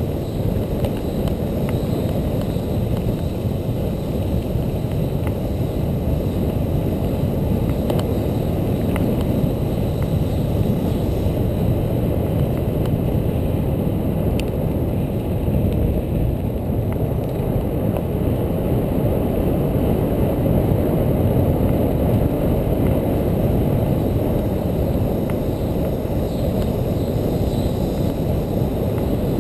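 Bicycle ridden fast over a dirt forest trail: a steady low rumble of wind buffeting the mounted camera's microphone together with tyre and frame rattle, with a few faint ticks.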